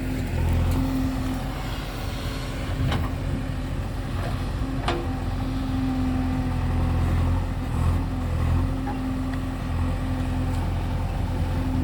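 Diesel engines of a backhoe loader and tractors running steadily during soil loading, a continuous low hum. Two sharp knocks are heard, about three and five seconds in.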